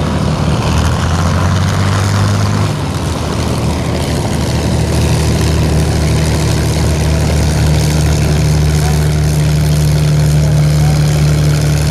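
Piston engine of a vintage propeller aircraft running steadily, with a shift in its tone about three seconds in.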